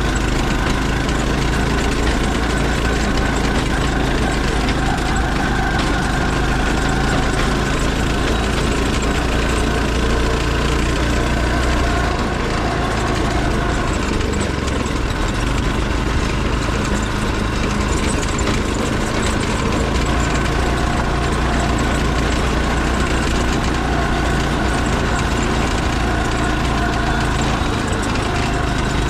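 Off-road go-kart's small engine running steadily as it drives along a dirt trail, its drone shifting a little in pitch around the middle.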